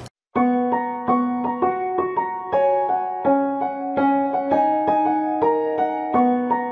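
Background piano music: a gentle melody of held notes, two or three a second, starting after a brief gap at the very beginning.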